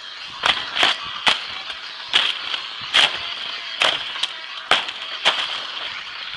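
A machete slashing through leafy undergrowth: about eight quick swishing cuts, irregularly spaced, over a steady high-pitched hum in the background.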